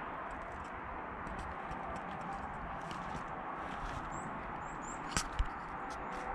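Countryside ambience: a steady rushing hiss, with small birds giving short high chirps and ticks. A sharp click and a low thump come a little after five seconds in.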